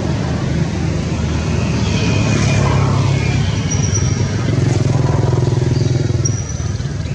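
A motor engine running, a steady low drone that turns louder and rattlier about halfway through, then falls off shortly before the end.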